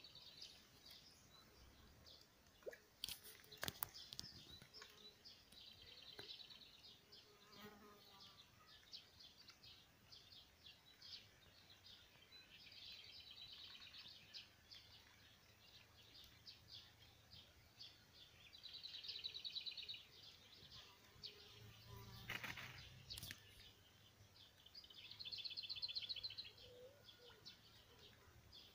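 Faint songbird trills: a high, fast-pulsed phrase of about a second and a half, repeating roughly every six seconds. There are a few soft knocks in between.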